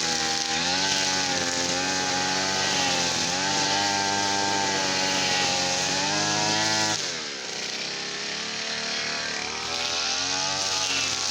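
Brush cutter's small petrol engine running at high revs with a slightly wavering pitch, dropping sharply in speed about seven seconds in, then revving back up near the end.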